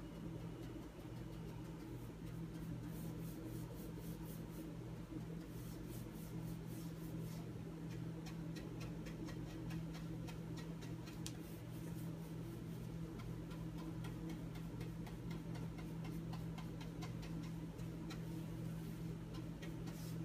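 Paintbrush working wood stain into a cabinet door: faint, rapid scratchy ticking of the bristles on the wood in several spells, over a steady low hum.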